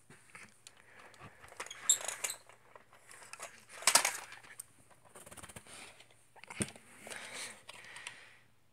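Hard plastic toys being handled: irregular clicks, knocks and rustles of a toy skip truck and a small clear plastic box. The loudest clatters come about two and four seconds in, with a sharp knock about two-thirds of the way through.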